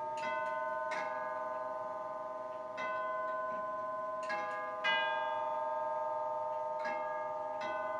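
Grandfather clock chiming the hour: about seven struck bell notes at uneven intervals, each ringing on and overlapping the next.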